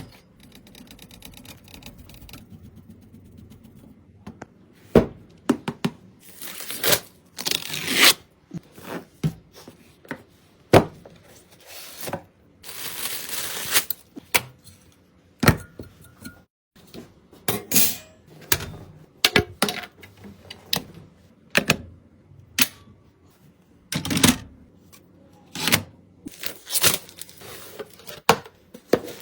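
Irregular clicks, knocks and scraping as PC parts and their packaging are handled, with a longer rustle about halfway through.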